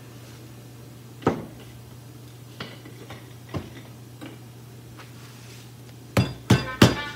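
Metal kitchen utensils knocking and clinking: a few scattered knocks, then three quick, sharp, ringing metallic clinks near the end.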